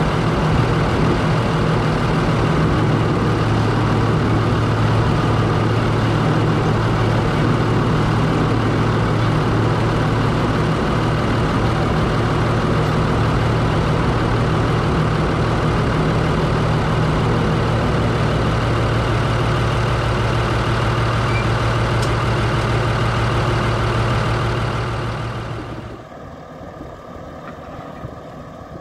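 Ruston Bucyrus 22RB dragline's engine running steadily, heard loud from inside the machinery house beside the winch drums. About 25 seconds in, the sound drops away sharply to a fainter, more distant engine.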